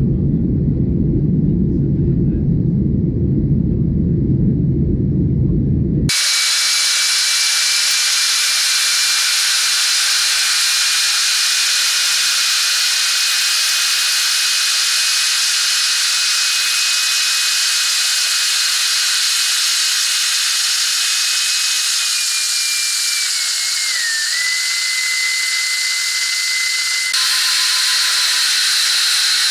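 Boeing 737-800 jet noise: a low, steady rumble that switches abruptly about six seconds in to a loud, steady hiss with a high, thin whistling tone. Near the end the whistle dips briefly in pitch.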